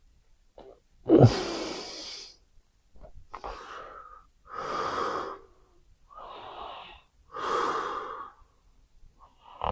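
A person snoring heavily: a run of noisy breaths roughly every one and a half seconds, louder and softer ones alternating. The first, about a second in, is the loudest and opens with a low rattle.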